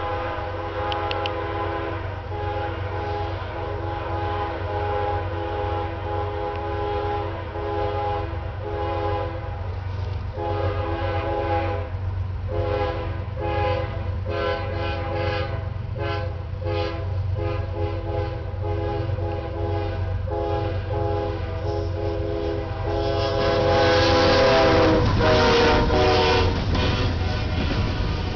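Freight locomotive air horn sounded by the engineer in a 'horn show': a rapid, rhythmic pattern of long and short blasts, over the steady low rumble of the diesel locomotives. Near the end the horn and train noise grow louder as the train comes close, before the horn stops.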